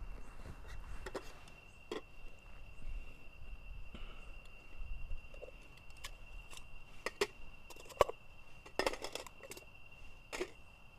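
Scattered light clicks and knocks of cups and a thermos being handled on a small camp table, the sharpest about eight seconds in and a quick cluster just after, over a steady high-pitched drone of night insects.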